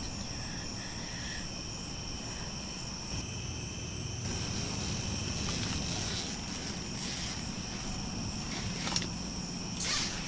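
Crickets chirping steadily in the night air, a constant high-pitched chorus, with a couple of faint rustles or footsteps near the end.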